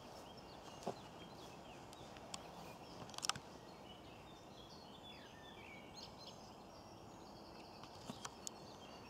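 Faint birdsong, short chirps and trills from small birds, over steady outdoor background noise, with a few soft clicks about three seconds in and again near the end.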